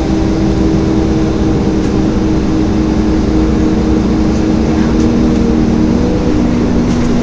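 Wright StreetCar articulated bus on its Volvo B7LA chassis, heard from inside while under way: a steady loud drone of engine and cooling fan, with several held whining tones that shift slightly in pitch over a rumbling road noise.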